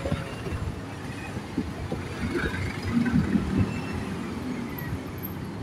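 Traffic noise heard from a moving vehicle: a steady low rumble of engines and tyres from the jammed jeepneys, cars and buses alongside.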